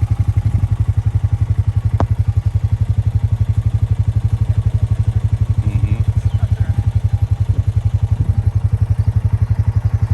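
Motorcycle engine idling steadily, a loud, even low pulsing of about a dozen beats a second, with one sharp click about two seconds in.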